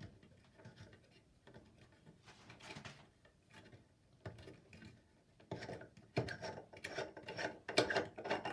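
Faucet aerator being unscrewed by hand: short scraping and clicking sounds of the threads and fingers on the fitting. The sounds come sparsely at first and grow busier and louder over the last few seconds.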